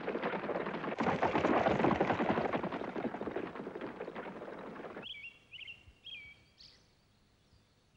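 Hoofbeats of a horse galloping away, fading as it goes, then stopping about five seconds in. A few short bird chirps follow.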